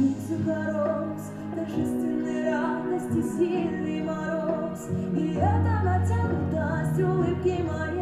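A woman singing a slow Russian song with vibrato, over instrumental accompaniment of held low notes that change every second or so.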